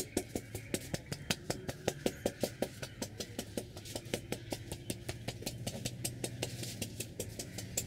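Rapid, even percussive massage strokes, about four to five slaps a second, from a barber's hands striking a customer's head, over a steady low hum of street traffic.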